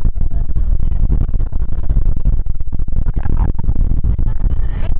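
Wind buffeting the camera microphone: a loud, uneven rumble, with faint voices from the pitch in the background.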